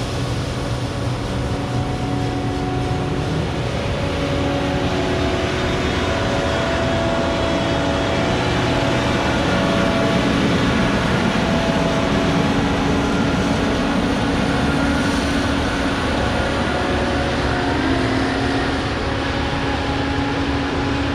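Case IH 2366 Axial-Flow combine running steadily while harvesting soybeans. The engine and threshing machinery make a continuous mechanical noise, with several whining tones that shift slightly in pitch.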